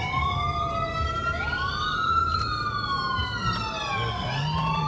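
Wailing emergency siren, its pitch sliding slowly up and down, with two wails overlapping out of step. Low car road noise runs underneath.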